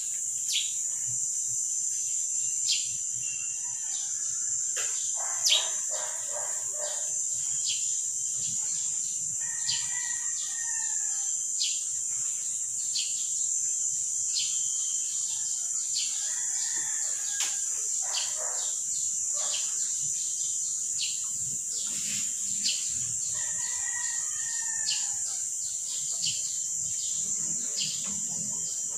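Birds chirping over a steady high-pitched insect drone, with a rooster crowing three times, several seconds apart.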